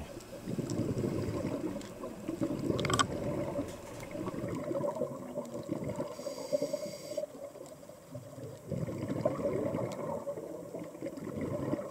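Muffled underwater noise: a scuba diver's exhaled bubbles gurgling and rumbling, swelling and fading every few seconds, with one short click about three seconds in.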